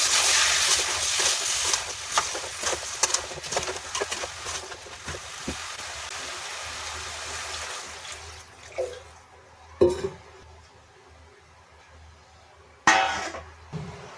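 Food sizzling and crackling in a hot pan, loud at first and dying away over about eight seconds, then a few sharp clinks of a utensil against the pan.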